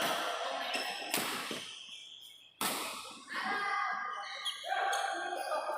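Badminton rally: rackets striking the shuttlecock, two sharp hits about a second and a half apart that ring on in the hall, with other sound between the strokes.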